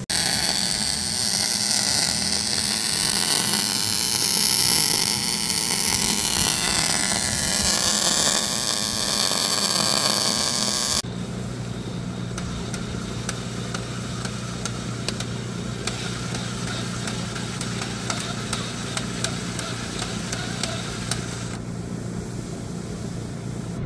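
A loud, even hiss for about eleven seconds, then a sudden drop to a cordless drill driver spinning out the bolts on the drill rig's sub, over a steady low engine hum.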